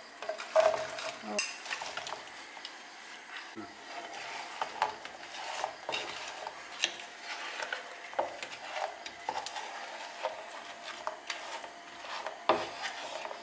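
Wooden spatula stirring and tossing fried chicken pieces through thick sauce in a frying pan, with irregular scrapes and knocks of wood against the pan. The chicken pieces are tipped in from a plate at the start, giving a few louder knocks in the first second or so.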